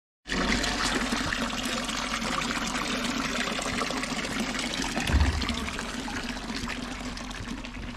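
Water from a stone wall fountain's spout pouring in a thin stream into a trough, a steady splashing. A brief low thump comes a little after five seconds in.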